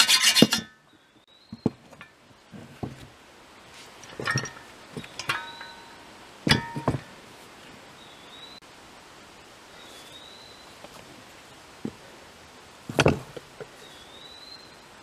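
Hacksaw strokes on the clamped steel shovel socket, ending about half a second in. Then scattered metallic clinks and knocks, a few with a short ring, as the shovel and a small bench vise are handled. A bird chirps faintly every couple of seconds.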